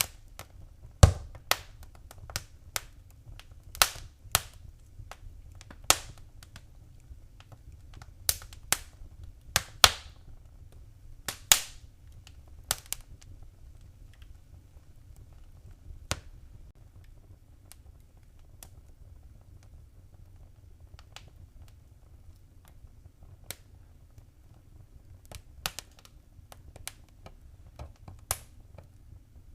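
Wood fire in a fireplace crackling, with sharp irregular pops that come thick and fast for the first dozen seconds and then grow sparser, over a low steady rumble.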